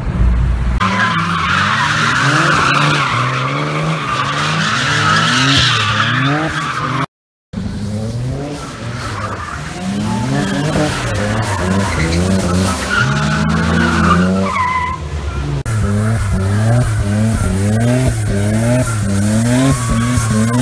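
Nissan 240SX drift car sliding, its engine revs climbing and dropping over and over while the tyres screech. The sound cuts out briefly about seven seconds in.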